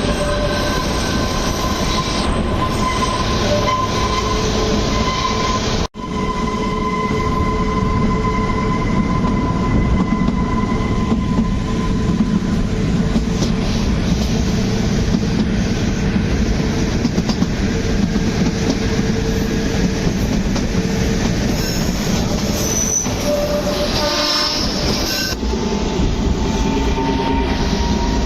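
Kalka–Shimla narrow-gauge toy train running, heard from inside the coach: a steady rumble of wheels on track, with thin wavering wheel squeals coming and going.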